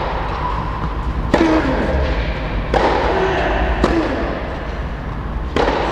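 A tennis rally: four sharp racket hits on the ball, roughly a second and a half apart, each followed by a long ringing echo in the domed indoor hall.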